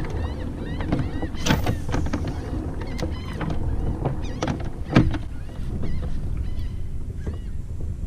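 Pedal-drive kayak under way: a steady low rumble with many faint little squeaks and a few sharp knocks, the loudest about five seconds in.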